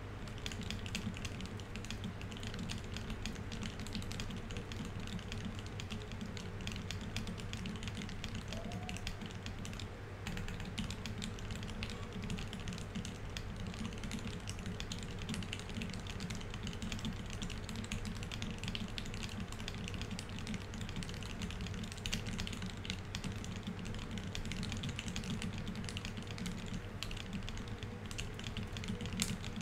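Fast, continuous typing on a Keycult 1/65 mechanical keyboard with Tealios V2 67 g linear switches and GMK Oblivion doubleshot ABS keycaps: keystrokes follow one another without pause at a speed-typing pace of about 147 words per minute.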